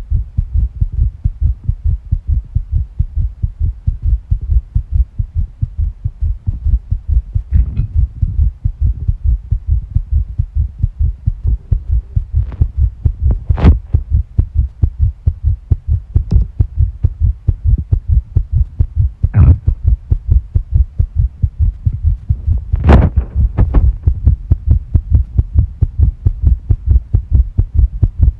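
Fast, regular human heartbeat picked up close against the body, each beat a low thud; the uploader reports tachycardia. A few brief sharper noises cut in now and then.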